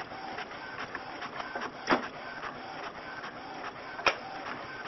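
Fax-type desktop printer running, its feed mechanism making a regular mechanical rhythm of clicks and short whines, about two to three a second. Two sharp knocks stand out, about two and four seconds in.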